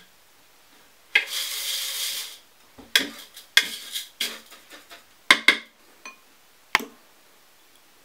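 A metal fork clicking and scraping against a plastic bowl and dishes while chicken pieces are dipped in beaten egg and turned in crushed pretzel-stick crumbs. A rustling scrape of about a second comes near the start, then a string of sharp clicks.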